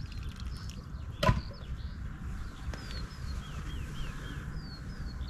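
Wild birds calling, short falling chirps often in pairs, over a low wind rumble, with one sharp click about a second in.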